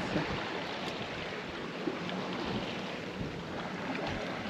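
Steady wash of wind and sea on a sailboat under way, with a few small knocks. The boat is carrying very little sail and is being thrown about hard by the waves.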